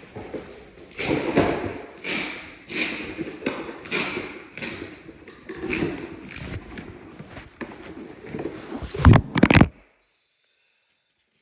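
Cardboard box and packing being handled around a heavy rack-mount UPS: a run of scuffs and knocks about once a second, then two loud thumps a little after nine seconds in.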